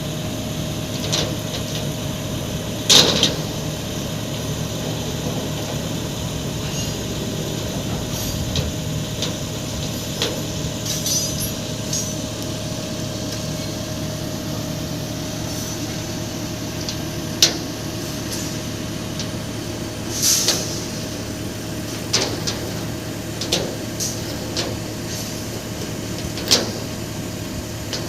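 Heavy vehicle engine running steadily while a fuel tank and generator set are lowered, with scattered sharp metallic knocks and clanks, about four of them loud.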